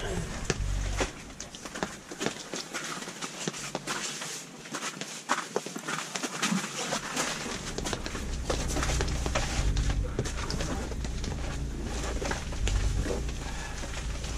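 Rustling and scattered clicks and taps inside a pop-up ice-fishing shelter, over a low rumble that comes and goes, dropping away for a few seconds about two seconds in and returning after about eight seconds.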